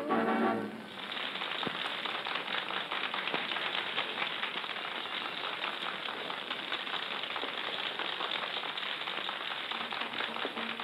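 A song ends abruptly just under a second in, leaving a steady crackling hiss: the surface noise of an old recording.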